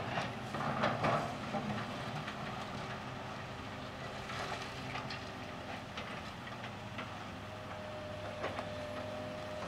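John Deere 470G excavator's diesel engine running steadily under load while it loads debris into a dump truck, with clatter and knocks, loudest in the first two seconds and scattered after. A steady higher whine comes in past the middle.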